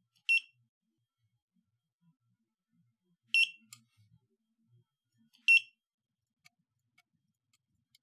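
Sonoff TX touch wall switch's buzzer giving three short high beeps a few seconds apart, the beeps that mark each step of teaching a button a 433 MHz code from the RF bridge.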